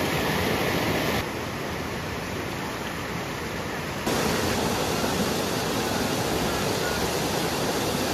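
Steady rushing noise with no distinct events, which drops suddenly in level about a second in and jumps back up about four seconds in, as separate clips are joined.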